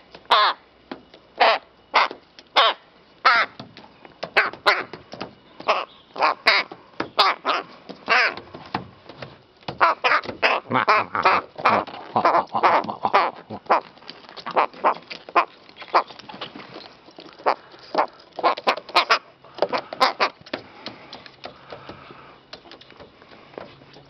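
Rook calling over and over at close range: a long run of short, harsh caws in quick succession, densest in the middle and dying away near the end.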